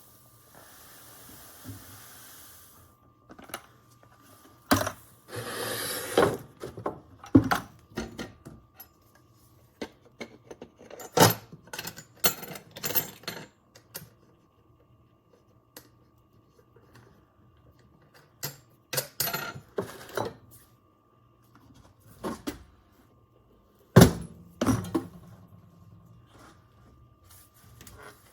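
Spent brass cartridge casings clinking and rattling as they are picked through and sorted by hand, in irregular clusters of sharp clicks with short pauses between.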